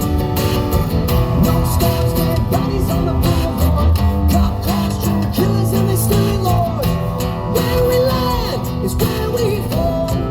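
Live rock band playing an instrumental passage, guitar to the fore, with sliding, bending pitched lines over a steady beat.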